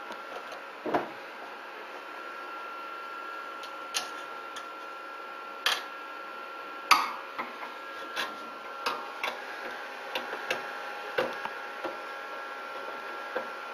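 Scattered clicks and knocks of a handle and its fittings being handled and fitted by hand onto a 3D printer's metal frame, a dozen or so, the loudest about seven seconds in. A steady high tone runs underneath.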